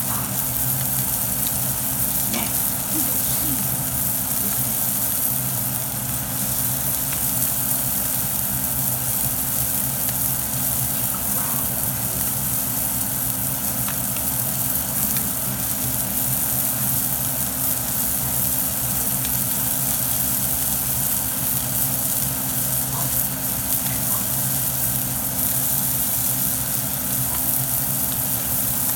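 Salmon frying in a pan, a steady sizzle, with a steady low hum underneath.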